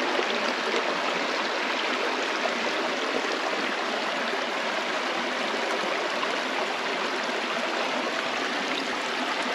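Shallow, rocky river running over stones: a steady rushing of water.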